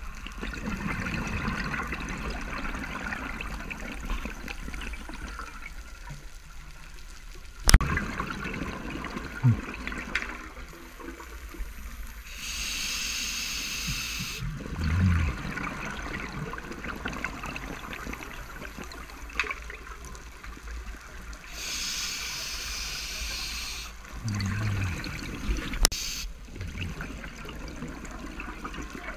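A scuba diver breathing through a regulator underwater. Twice, a hissing inhale is followed by a gurgling burst of exhaust bubbles, over a steady underwater hiss. A sharp click comes about a quarter of the way in, and another near the end.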